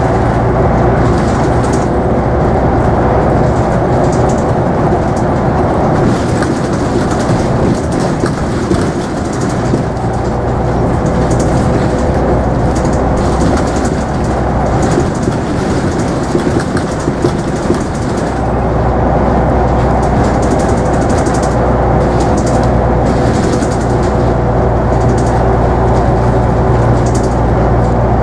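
Scania N94UB double-decker bus heard from inside while driving: the nine-litre five-cylinder diesel's steady drone with a constant whine, road noise and light interior rattles. About two-thirds of the way through the engine's low drone grows louder as it pulls harder.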